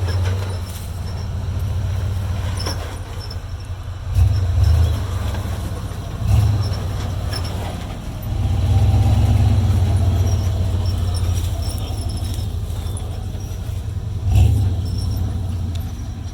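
Off-road 4x4's engine running and revving in repeated bursts as it crawls over an obstacle, with a few sharp knocks during the surges.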